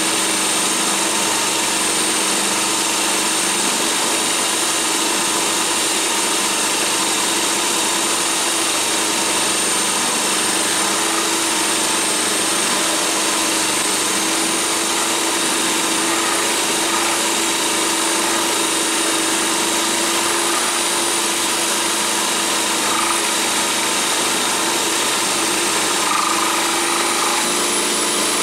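Electric power drill driving a carbide end mill in a tapered-roller-bearing toolpost drill, milling 316 stainless steel: a steady motor hum and high tone over the continuous noise of the cut.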